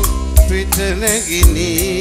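Live band playing a Sinhala pop song. A kick drum thumps about once a second, with cymbal strokes and a wavering melody line over the accompaniment.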